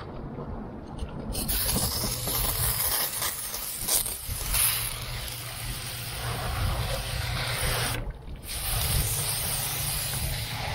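A steady hiss over a low hum, starting abruptly about a second and a half in, cutting out briefly near the end, then resuming.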